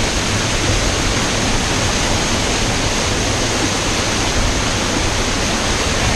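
Waterfall pouring, a loud, steady rush of water.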